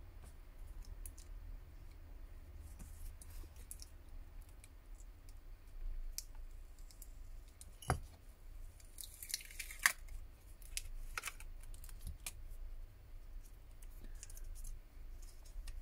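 Faint handling noise of a smartphone being worked on by hand: scattered small clicks and taps of its plastic and metal parts. There is a sharper click about eight seconds in, followed by a short rustle.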